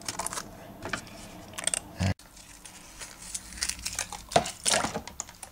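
Aluminium foil crinkling and small clicks and taps as frozen test pieces are handled on it. The sound breaks off abruptly about two seconds in, then irregular handling clicks and scrapes resume.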